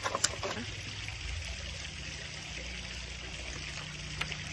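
Paper slips rustling and clicking as hands pick through them, mostly in the first half-second, then a steady background hiss with a low hum.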